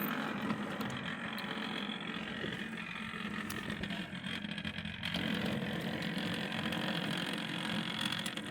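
O gauge model locomotive running on the track: a steady hum and rumble from its motor and wheels, getting a little louder about five seconds in.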